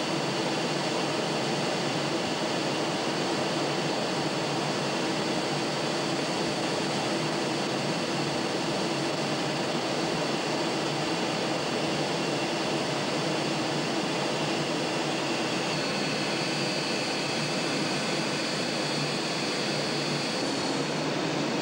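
Steady jet engine and airflow noise heard inside a jet's cockpit in flight, with a thin high whine above it that shifts slightly near the end.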